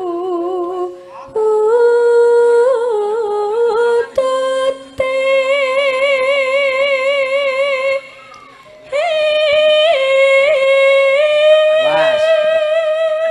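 Javanese sinden (female gamelan vocalist) singing into a microphone: long held notes with a wide, even vibrato, in phrases broken by short pauses about a second, four seconds and eight seconds in.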